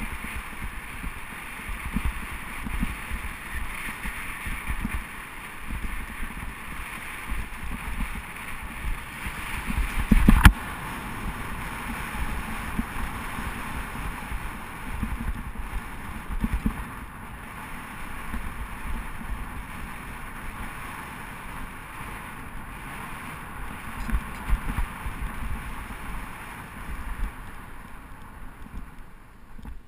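Wind buffeting an action camera's microphone during a bicycle ride in city traffic, with steady road and traffic noise. A single sharp knock about ten seconds in is the loudest sound.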